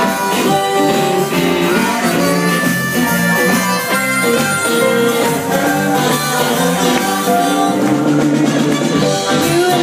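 A live band playing, with drums and electric guitar, amplified through a club PA.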